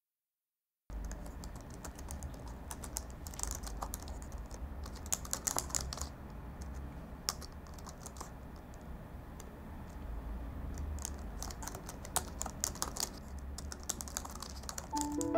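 Typing on a laptop keyboard: quick, irregular keystroke clicks in bunches, starting about a second in, over a low steady hum. Piano music comes in at the very end.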